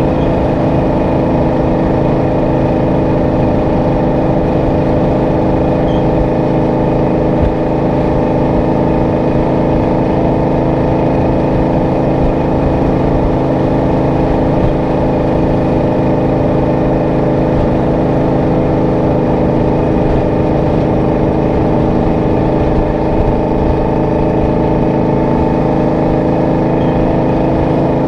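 Detroit Diesel 12V71 two-stroke V12 diesel in a Kenworth W900A running at a steady speed on the move, its exhaust note holding one even pitch.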